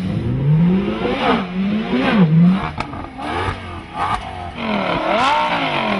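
Supercar engines accelerating hard through the gears in a standing-start drag race, the pitch climbing and then dropping back at each gear change, several times over.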